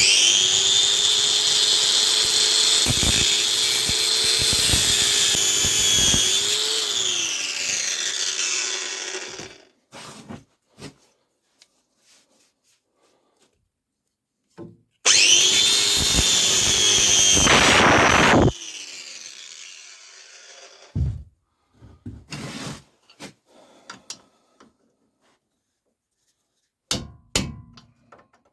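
Angle grinder cutting through the seized stud of a car's stabilizer link. The link has to be cut off because its hex sockets are stripped and the nut spins with the stud. The grinder runs loud and steady for about nine seconds, its motor pitch sagging under load before it spins down. It cuts again for about three seconds further on, followed by a few light knocks near the end.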